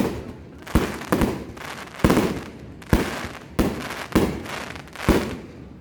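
Fireworks going off in quick succession: about nine sharp bangs, roughly one every half second to second, each trailing off.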